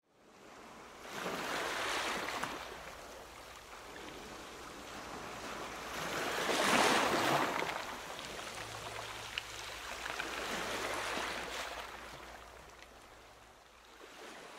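Intro sound effect of rushing noise that swells and fades about three times, loudest about seven seconds in.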